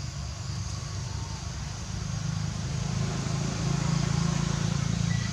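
Low, steady rumble of a motor vehicle engine, growing louder past the middle.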